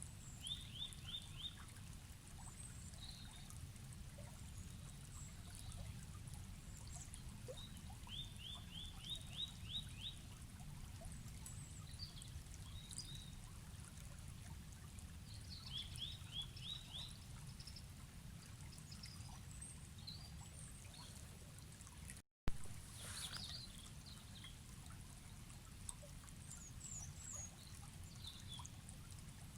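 Flowing forest stream with a low, steady rush of water. A small bird repeats a quick run of five or six high notes about every eight seconds, with other scattered chirps between. About two-thirds of the way through, the sound cuts out for an instant and a sharp click follows, the mark of a splice in the recording.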